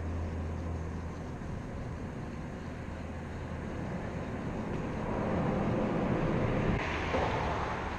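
Traffic noise from vehicles crossing the highway bridge overhead, heard from beneath the deck: a steady low hum and tyre rush that swells louder from about five to seven seconds in as a vehicle passes.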